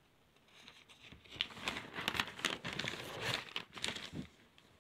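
Pages of a printed paper booklet being turned by hand, with paper crinkling and rustling and many quick crackles. It starts about half a second in and dies away near the end.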